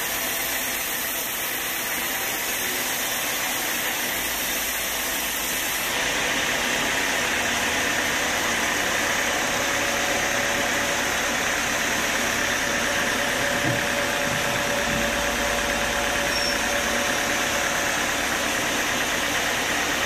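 Horizontal band sawmill running steadily, its blade cutting lengthwise through a young teak beam: a continuous dense machine noise whose tone shifts slightly about six seconds in.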